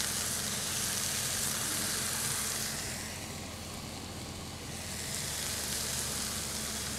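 Marinated chicken breasts frying in a non-stick pan over high heat, sizzling steadily. The sizzle softens for a couple of seconds midway, then comes back.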